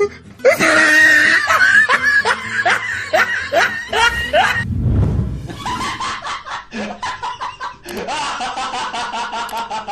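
Laughter sound effects: a person laughing in quick, repeated bursts, then a low rumble about four to five seconds in, followed by another laugh in fast, even pulses of about four or five a second.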